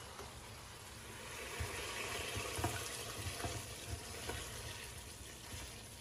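Hot braised shark pieces and their sauce scraped out of a wok with a silicone spatula into a glass bowl: the sauce hissing and bubbling, swelling about a second in, with a few light knocks of the spatula against the pan.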